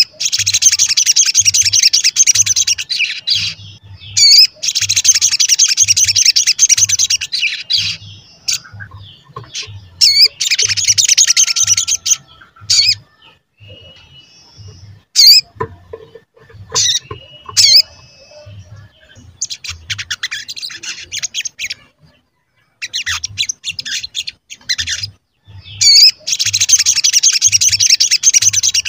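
Olive-backed sunbird (sogon) singing: long, fast, high twittering phrases of three to four seconds each, four times, broken by sharp high 'cuit' calls, with a quieter stretch of scattered chirps in the middle.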